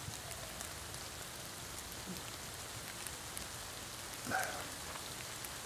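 Steady light rain falling through tree leaves, with scattered drops ticking. A brief vocal sound about four seconds in.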